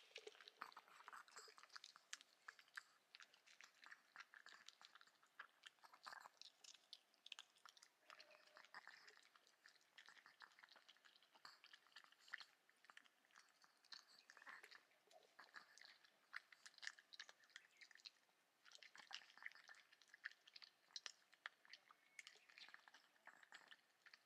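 A Chihuahua eating dry kibble from a wooden bowl: faint, rapid crunching and chewing, with a short lull about three-quarters of the way through.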